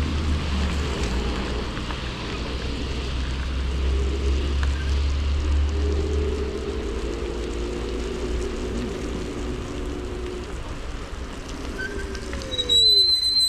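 Scooter riding on wet asphalt: a steady rumble of wind and tyres with a faint whine that rises and falls, gliding down in pitch near the end, followed by a short, high beep.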